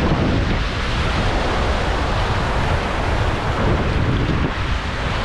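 Steady rush of river whitewater around a raft, with wind buffeting the microphone.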